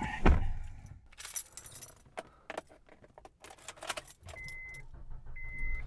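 A loud thud just after the start, then car keys jangling and clicking as they are handled in a pickup truck's cab. From a little past the middle, the truck's warning chime beeps steadily, about once a second.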